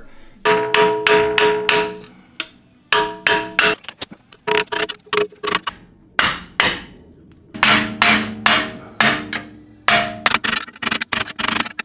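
Repeated hammer blows on a flathead screwdriver against a car's sheet-metal rear brake dust shield, each strike ringing. The blows come in quick bunches with short pauses, pounding the shield loose at its spot welds.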